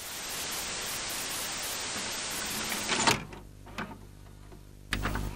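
Intro sound effects of a videotape being loaded into a VCR: a steady hiss of static for about three seconds, cut off by a sharp clunk, then a low hum with faint mechanical clicks and a deep thud near the end.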